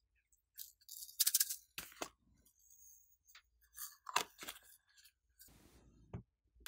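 Small plastic glitter shaker bottle handled and shaken over a tray of slime: clicks and taps of hard plastic, with a quick dense rattle about a second in and a sharper knock around four seconds.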